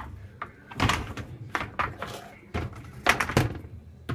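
Clattering knocks in three bunches, about a second apart, as dishwasher parts are handled and fitted back into place.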